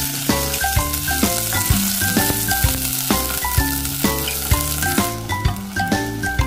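Red curry paste sizzling as it fries in oil in a stainless steel saucepan, over background music.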